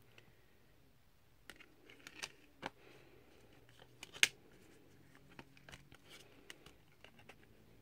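Light clicks and knocks of Blu-ray discs and a plastic Blu-ray case being handled, discs lifted off their hubs and set back, with one sharper click a little past four seconds in.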